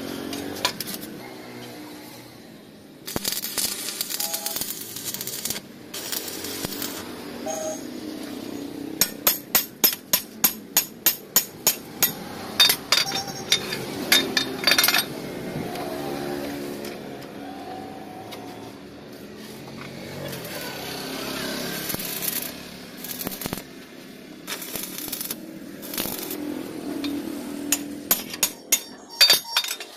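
Sharp metal clanks, about two a second for several seconds in the middle and a few more near the end, from a hand-lever slotting fixture as its cutter is worked through a steel bore to cut a keyway. Background music plays underneath.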